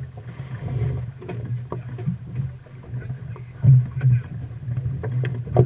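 Low, pulsing rumble of wind and water around a wooden longboat under sail, with scattered knocks, clicks and rope rustles from crew working the lines on deck as the lugsail is dipped for a tack, and one sharper knock near the end.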